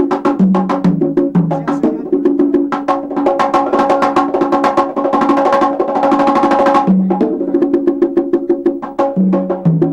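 Set of conga drums played by hand in a fast, dense pattern: rapid sharp strokes and ringing open tones moving between a few drum pitches.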